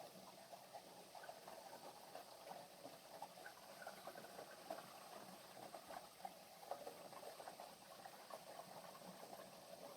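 Faint water sounds: a continuous patter of small splashes and drips.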